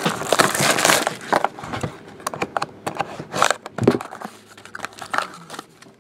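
Clear plastic wrap crinkling and rustling as a trading-card box is opened, dense for about the first second. Scattered light clicks and rustles follow as a card in a plastic holder is handled.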